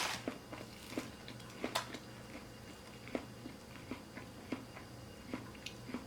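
Close-miked chewing of fast food: irregular soft crunches and wet mouth clicks, a few every second or so, over a faint low hum.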